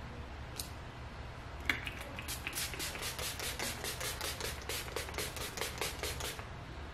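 A fine-mist pump spray bottle of face mist spritzed over and over in quick succession, a long run of short hisses at about five a second, after a single click about a second and a half in.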